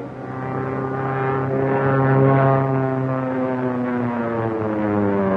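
Single-engine propeller plane flying low overhead, its engine drone slowly dropping in pitch as it passes.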